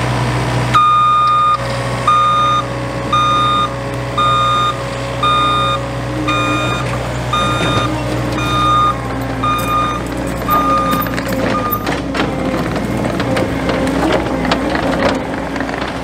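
John Deere 317G compact track loader running, with its backup alarm beeping about once a second as the machine reverses. The beeping stops about three-quarters of the way through, and a few knocks follow as the engine keeps running.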